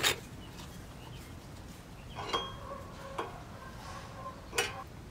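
A few sharp metallic clicks and taps as an open-end wrench tightens a grease inspection cup onto the chrome PTO housing of a long-tail mud motor, the loudest near the end. A faint steady tone runs under the second half.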